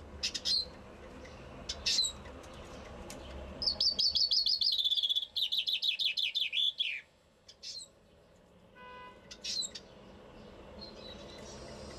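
Common chaffinch singing one full song: a run of quick repeated notes falling in pitch, ending in a downward flourish, starting about three and a half seconds in. Short sharp call notes come before and after it.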